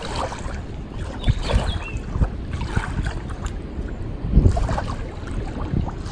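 Riverside ambience: wind gusting on the microphone with water lapping, and a few short high chirps about a second and a half in.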